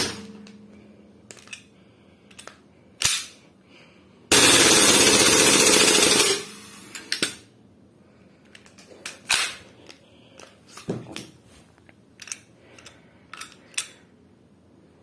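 WE Glock 18C Gen 3 gas blowback airsoft pistol firing a loud full-auto burst of about two seconds, a few seconds in, after a single sharp click. Smaller clicks of the pistol being handled follow.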